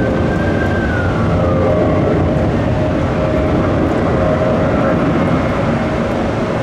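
Jet airliner engines running at high power: a steady roar with whining engine tones, one higher tone falling in pitch about a second in.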